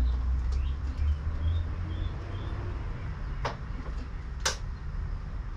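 Two sharp clicks, about three and a half and four and a half seconds in, as a Suzuki 6 hp outboard motor clamped on a wooden stand is handled. Under them runs a steady low rumble, with faint bird chirps.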